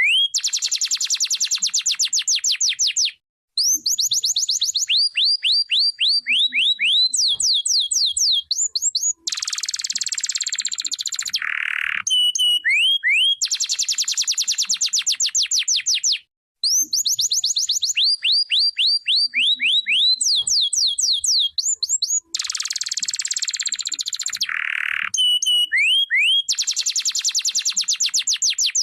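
Canary singing a long song of fast trills and runs of quickly repeated rising whistled notes, phrase after phrase, with brief pauses every six or seven seconds.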